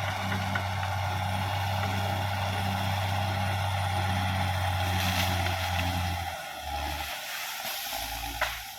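Caterpillar D6R XL bulldozer's diesel engine running with a steady low hum; about six seconds in the engine note drops and changes. A single sharp knock near the end.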